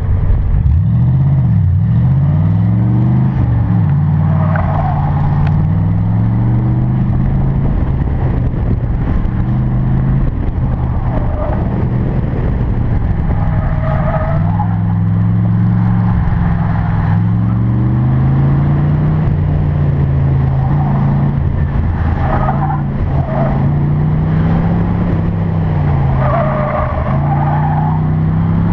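1992 Corvette's V8 engine pulling hard on an autocross run, its pitch rising and falling again and again as the driver accelerates, shifts and lifts between cones. Short bursts of tyre squeal come through in several corners.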